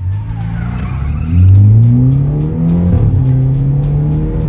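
BMW 5 Series G30's 2.0-litre turbo four-cylinder, with a valved exhaust and its large resonator removed, accelerating hard in the cabin. The engine note climbs for about three seconds, drops at an upshift, climbs again, and drops at a second shift near the end.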